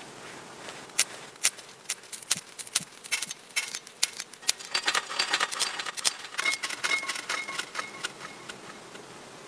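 Dry tinder crumbled and rubbed between the hands: a run of crisp crackles and small snaps, thickest in the middle.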